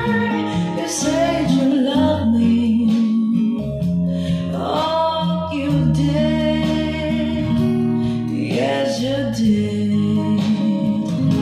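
A song with singing and guitar played back on a hi-fi system: a Sansui AU-666 amplifier driving JBL loudspeakers.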